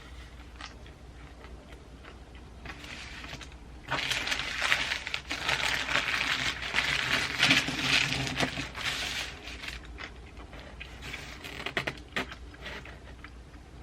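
Close-miked crackling and crunching from a Subway footlong sandwich being handled and eaten, loudest for about five seconds in the middle, with fainter scattered clicks before and after.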